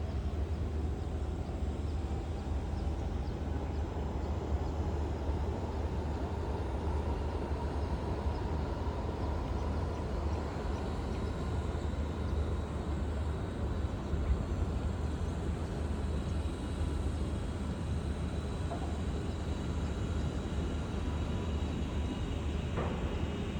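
Steady outdoor ambience dominated by a constant low rumble, with no distinct events.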